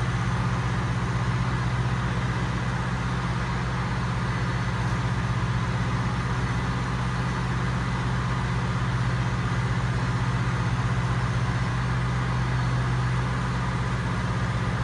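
Slurry pumps running: a steady, unchanging low mechanical drone.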